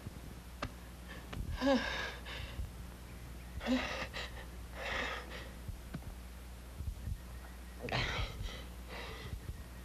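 A woman breathing loudly through her open mouth: about five drawn breaths spaced a second or more apart, two of them opening with a brief voiced catch.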